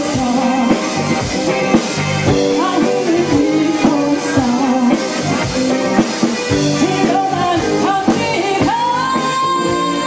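Live band with a female lead singer: electric guitars, bass and drum kit accompany the sung melody, amplified through the stage PA. Near the end a long high note is held steady.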